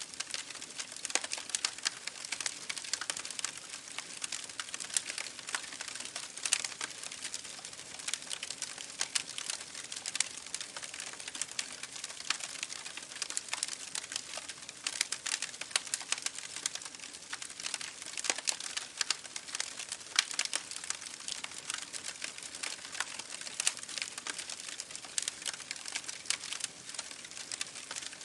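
Water splashing and dripping in a steady, dense patter of small crackling drops.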